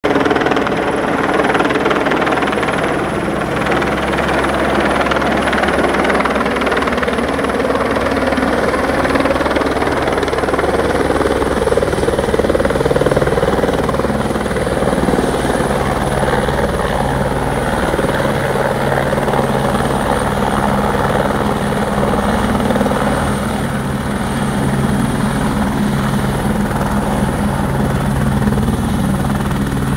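AS350 (H125) single-turbine helicopter descending, hovering low and touching down, its rotor and turbine running loud and steady with a thin high turbine whine over the rotor noise.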